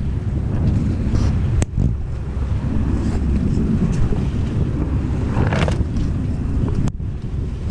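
Wind buffeting the microphone aboard a sailboat under spinnaker: a heavy, steady low rumble. Two sharp clicks cut through, about a second and a half in and near the end, and there is a brief swish shortly before the second.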